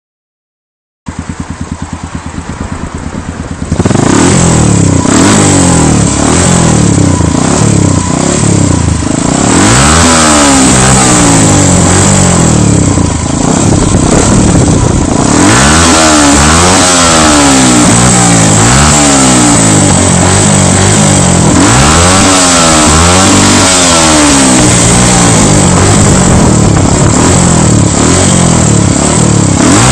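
Derbi Senda 125 Baja's single-cylinder engine through a GPR aftermarket exhaust. It starts about a second in, idling, becomes much louder about four seconds in, and from about ten seconds in is blipped over and over, the pitch rising and falling with each rev.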